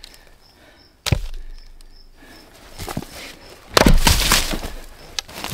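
Gränsfors Bruk Small Splitting Axe striking a log with two sharp, loud chops, one about a second in and one near four seconds in. On the second strike the log splits and a piece of wood flies off.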